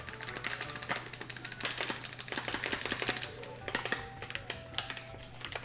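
Clear plastic bag crinkling and crackling in quick, dense clicks as bath bomb powder is shaken out of it into a bowl, thinning out about three seconds in.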